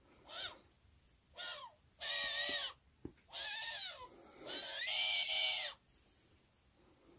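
Eurasian eagle-owl giving five harsh calls, each rising and then falling in pitch, with short pauses between; the last call, about four and a half seconds in, is the longest.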